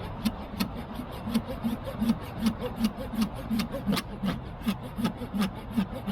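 Kerye mini folding pull saw cutting wood on its fine-tooth side, in quick even strokes of about three a second.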